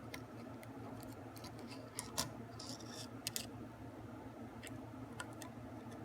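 Light clicks and scrapes of small metal parts as valve keepers and a small steel hand tool are worked around a motorcycle valve spring retainer. Faint scattered ticks throughout, two sharper clicks about two and three seconds in, and a brief scratchy rasp between them.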